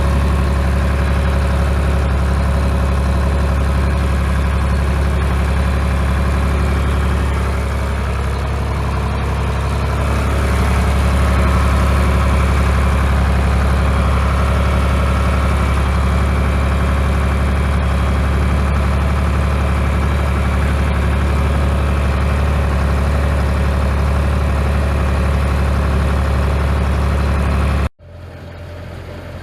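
Tractor engine running steadily with a deep drone, just cold-started and warming up. Its level dips slightly about eight seconds in and picks back up a few seconds later. Near the end the sound cuts off suddenly.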